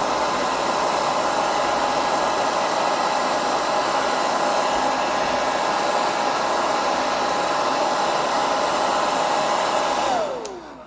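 Handheld hair dryer blowing hot air steadily, with a constant motor whine. It is switched off near the end, its whine falling in pitch as it spins down.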